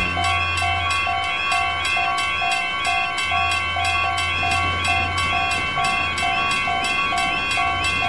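Several railroad crossing warning bells ringing at once in a fast, even rhythm, layered with a two-tone electronic alarm, over a low hum.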